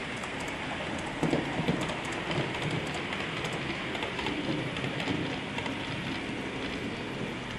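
HO-scale model passenger train rolling past on the layout, a steady rushing rattle of small metal wheels on the rails with many quick clicks, a little louder about a second in.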